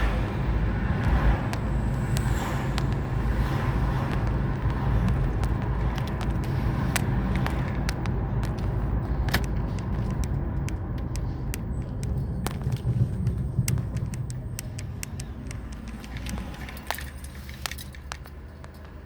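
A car being driven: steady low engine and road rumble with scattered light clicks and rattles, the rumble dropping away over the last few seconds.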